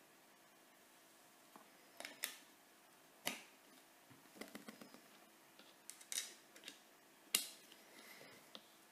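Cable plugs being pushed into the panel sockets of a homemade speaker built in a metal tin, with the tin being handled: scattered sharp clicks and small knocks, the loudest about seven seconds in.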